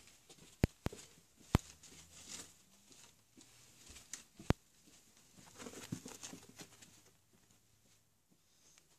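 A small dog in a coat moving about and walking off across carpet: soft pattering and rustling, with four sharp clicks in the first half.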